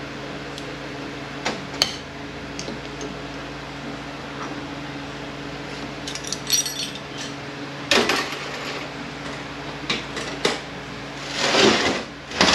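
Metal clinks and clanks of hand tools against the steel parts of a 231J transfer case being taken apart, with a longer scraping rattle near the end, over a steady low hum.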